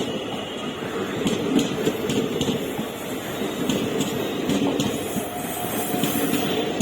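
Express passenger train rolling past at a steady pace, its coaches giving a continuous rumble with scattered clicks from the wheels running over rail joints. A faint steady whine joins about five seconds in.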